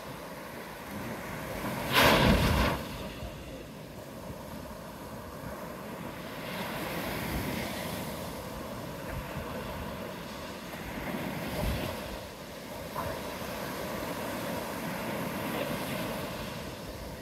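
Gulf surf washing onto the beach in slow swells of noise, with a loud burst about two seconds in and some wind on the microphone.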